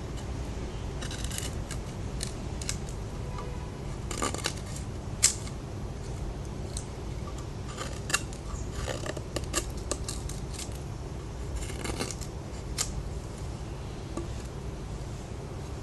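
Spyderco Paramilitary 2 folding knife with an S30V steel blade cutting, in irregular clusters of short, crisp slicing and scraping strokes, with a sharp click about five seconds in. A steady low hum runs underneath.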